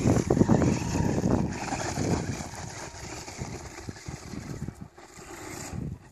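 Electric motor and scrabbling tyres of a 1:10 RC monster truck climbing a steep gravel-covered rock slope, mixed with wind buffeting the microphone. The sound is loudest in the first two seconds and fades as the truck gets higher up the slope.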